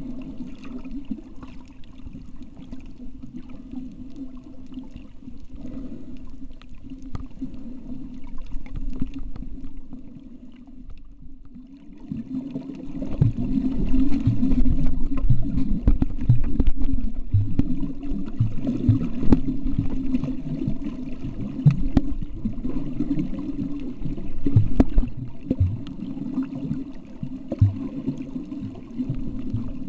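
Muffled underwater sound picked up by a camera held below the surface: a steady low hum with water noise. It grows louder about twelve seconds in, with irregular low thumps.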